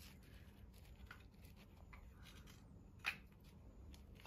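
Faint handling noise of a gloved hand turning a half-carved wooden kuksa cup: light rustles and small ticks, with one brief louder rustle about three seconds in.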